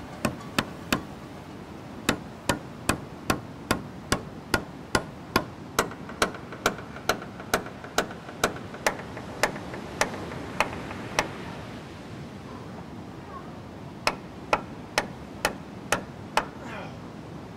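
Hammer blows on wood, struck steadily about two or three times a second. The blows stop for a few seconds, then a shorter run of about half a dozen more follows.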